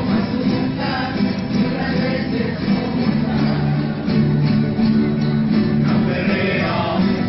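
A rondalla playing: several guitars strummed together under a group of male voices singing held notes in chorus.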